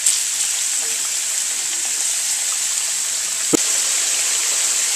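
Potato chips deep-frying in a pan of hot cooking oil: a steady sizzle, with one short tap about three and a half seconds in.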